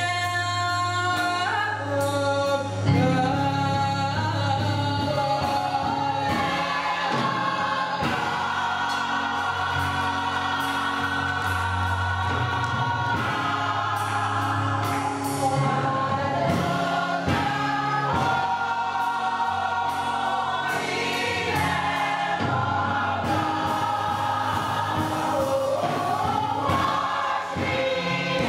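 Gospel choir singing with band accompaniment, full voices sustaining long held chords over a steady bass line.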